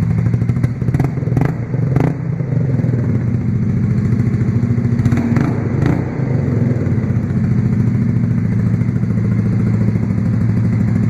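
Honda Grom's 125 cc single-cylinder engine idling cold through a newly fitted aftermarket low-mount full exhaust, a lot louder than stock. A few sharp clicks sound over it about a second in and again around five to six seconds in.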